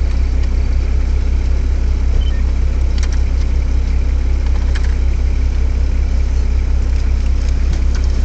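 Nissan Patrol GR Y60's diesel engine idling steadily, heard from inside the cab, with a few light clicks and rattles.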